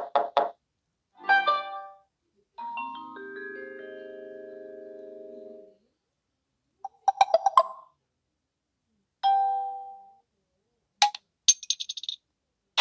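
A string of Samsung Galaxy Wide3 stock notification tones played one after another, about seven short chimes each separated by silence. One near the middle climbs through several notes and holds them for about three seconds.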